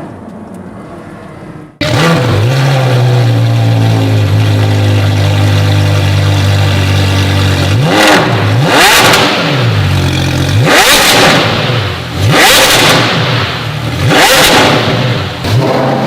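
Porsche Carrera GT's 5.7-litre V10 through an Unobtainium aftermarket exhaust, starting about two seconds in. It runs steadily at first, then is blipped about five times, each rev rising and falling sharply.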